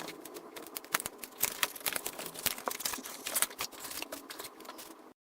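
Packaging being handled as a product box is opened: dense, irregular clicks and crinkles of cardboard and plastic, cutting off abruptly just before the end.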